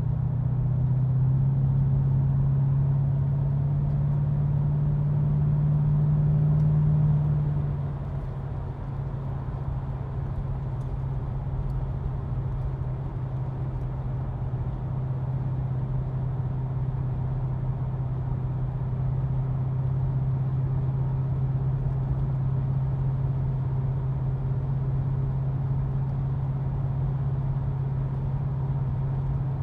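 Porsche 928's V8 engine droning steadily inside the cabin on the move, over a low rumble of road noise. The engine note is louder for the first seven seconds or so, then drops back and holds steady at cruise.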